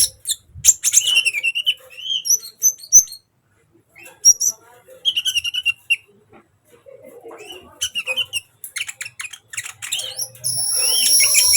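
Sunbird singing hard: bursts of high, rapid chirps and twittering phrases, ending in a long buzzing trill near the end.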